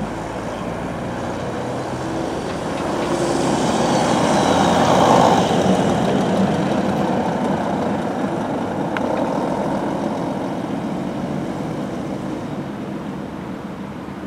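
Coach bus's diesel engine pulling away and driving past, growing louder to a peak about five seconds in, then fading as it moves off.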